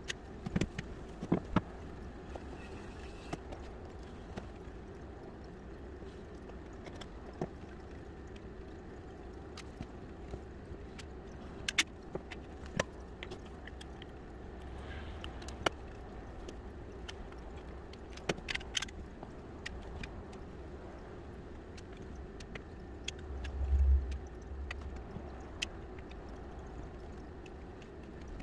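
Scattered sharp clicks of a caulking gun's trigger and rod as adhesive beads are run along wooden floor joists, over a steady low hum, with a single low thump near the end.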